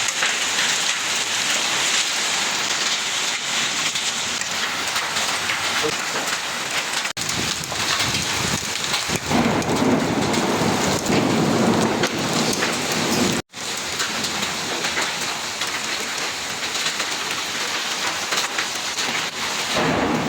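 Hailstorm with heavy rain: a dense, steady rush of rain and hailstones striking surfaces, heavier for a few seconds in the middle. The sound cuts out for an instant about 13 seconds in.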